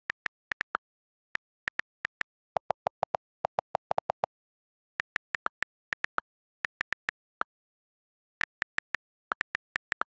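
iPad on-screen keyboard key-click sounds as text is typed: a series of short, crisp clicks, several a second, with silence between. About two and a half to four seconds in comes a quicker run of lower-pitched clicks.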